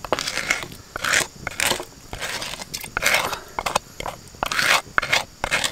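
Plastic spatula scraping ground spice paste out of a wooden mortar into a cooking pot, in repeated short scraping strokes.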